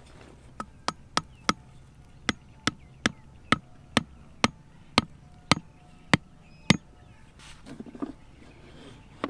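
A run of about fourteen sharp knocks, roughly two a second, from a tool striking a hard material; they stop a little over two-thirds of the way in and give way to a brief, softer rustle.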